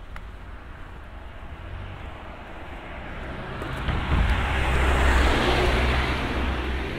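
A car driving past: engine and tyre noise swell over a couple of seconds, are loudest about five seconds in, then fade away.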